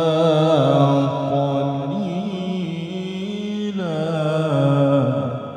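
A male qari's solo voice reciting the Quran in melodic tilawah style: one long held phrase with stepped pitch changes and ornamented turns, ending about five seconds in and trailing off.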